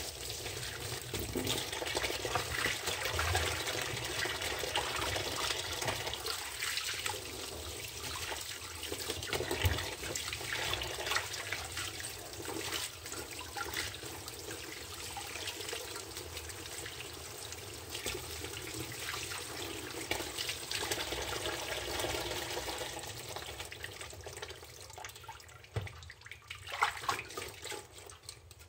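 Tap water running into a plastic basin in a steel sink, splashing as hands rinse smartphones under the stream. Near the end the flow stops, and only a few drips and small splashes are left.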